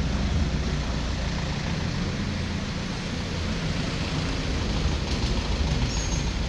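Road traffic: a heavy engine rumbling steadily, with road noise from passing vehicles.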